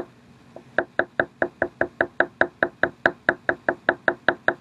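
Oil pastel tapped rapidly onto paper to make pointillism dots, an even run of short taps at about five a second after a brief pause at the start.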